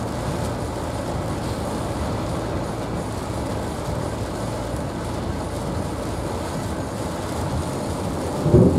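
Steady cabin noise of a car driving on a wet highway in heavy rain: tyre hiss and road noise, with rain on the car's body and windshield. A brief louder sound comes near the end.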